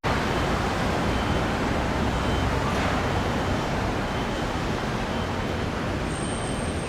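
Steady road traffic noise, a continuous rush of passing vehicles, starting abruptly.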